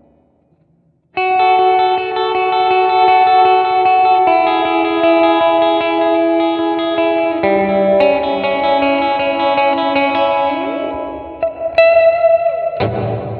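Electric guitar played through a Digitech RP1000 multi-effects processor on a clean preset, with sustained ringing chords that change every few seconds. It starts after about a second of silence, and there is a slide down in pitch near the end.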